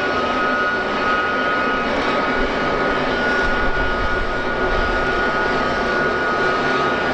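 Jet aircraft engines running with a steady high whine over a loud, broad rush.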